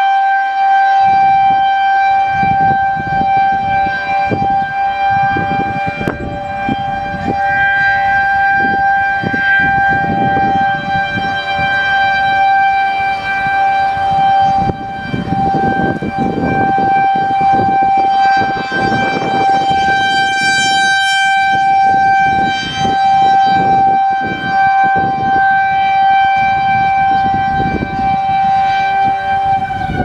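Federal Signal 2001 electromechanical outdoor warning siren sounding a steady, ear-piercing single tone at full speed during a tornado siren test. Wind buffets the microphone, adding low rumbles underneath.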